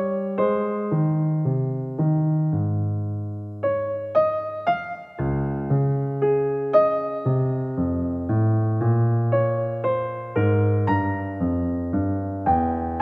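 Slow background music on piano or electric piano: single struck notes, each fading away, over lower held notes.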